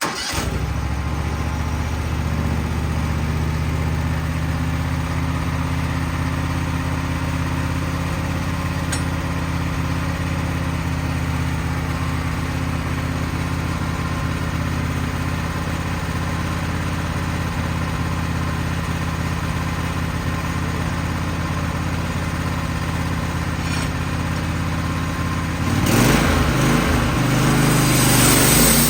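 Wood-Mizer band sawmill's engine running steadily. About three seconds before the end it grows louder and its pitch shifts.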